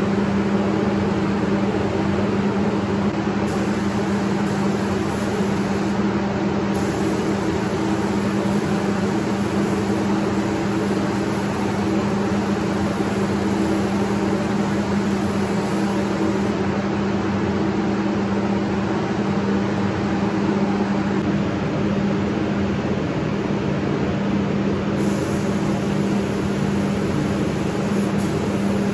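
Steady hum and rushing air of a paint spray booth's ventilation fans, with the hiss of a gravity-feed spray gun laying down paint.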